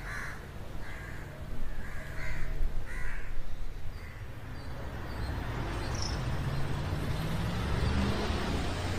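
Crows cawing, several short calls in the first three seconds or so, over a steady low rumble that swells louder in the second half.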